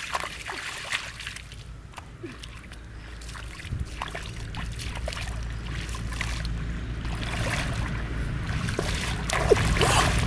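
Muddy pond water splashing and sloshing as a person wades through the shallows and grabs at fish by hand, with a few sharper splashes near the end. A low steady rumble runs underneath from about four seconds in.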